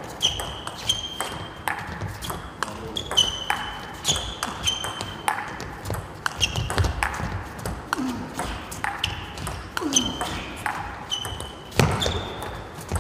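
A plastic table tennis ball struck back and forth in a long rally, sharp ringing clicks off the rackets and the table roughly every half second.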